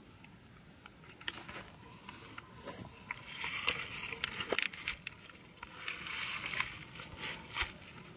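Grass blades rustling and crackling close to the microphone, with scattered handling clicks, in two denser spells.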